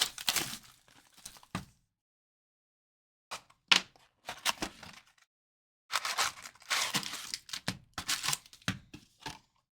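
Wrapping on a box of 2013-14 Fleer Retro basketball cards being torn open and crinkled, in three bursts with dead pauses between them.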